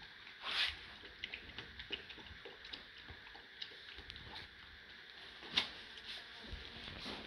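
American Staffordshire terrier × American bulldog puppies playing and chewing in their bed: scattered small clicks, scratches and paper rustles over a steady hiss, with two louder short sounds, about half a second in and about five and a half seconds in.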